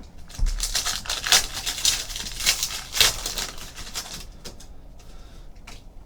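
Foil trading-card pack of 2015 Panini Prizm football being crinkled and torn open, a quick run of sharp crackles and rustles for about four seconds, then quieter handling of the cards.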